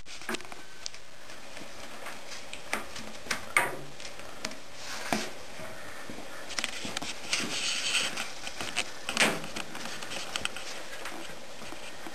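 Scattered knocks, clicks and rustling from things being handled, with a few sharper knocks about three and a half, five and nine seconds in.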